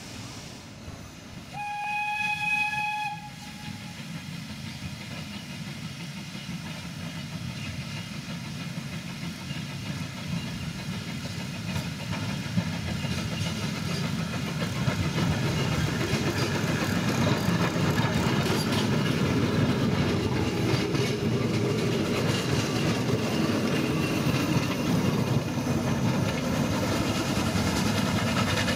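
A narrow-gauge steam locomotive gives one short, steady whistle lasting about a second and a half. Then the train's running noise builds over the next dozen seconds and stays loud.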